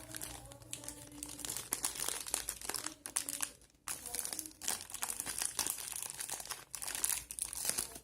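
Packaging being crinkled and rustled as it is opened by hand: a dense run of crackles with a short pause just before halfway.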